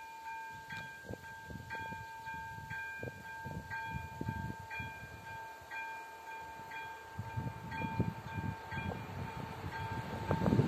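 Railway level-crossing warning bell ringing electronically, about one stroke a second, warning that a train is approaching.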